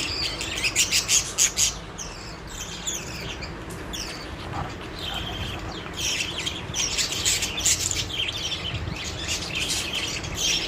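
Several pet budgerigars chattering and chirping, with a rapid run of short, high chirps and warbles, busiest about half a second in and again past the middle.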